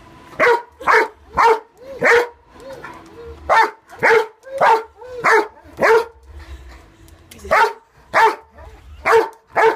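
Rhodesian ridgeback barking in play, about fourteen loud barks at roughly two a second, with a break of over a second near the middle.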